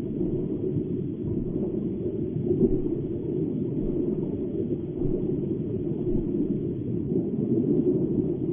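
Steady low-pitched water noise of an aquarium tank, the wash of its circulation pumps and filtration, with no distinct events.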